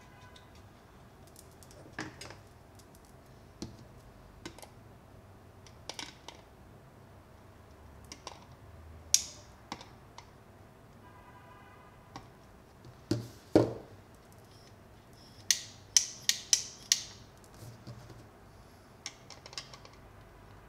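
Scattered clicks, taps and light knocks of small hand tools and plastic parts as a dimmer switch is fitted into an old plastic camera body, with a quick run of sharp clicks about sixteen seconds in.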